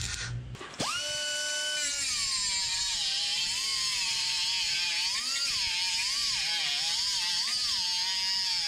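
A MIG welder's arc crackles and buzzes briefly at the start. About a second in, a pneumatic cut-off tool starts with a high whine, which drops and wavers as its thin disc cuts into sheet steel, over a steady hiss.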